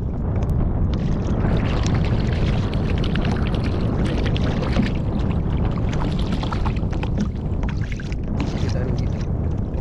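Steady wind noise on the microphone, with a run of small splashes as a hooked pejerrey thrashes at the water's surface beside the kayak and is swung out of the water.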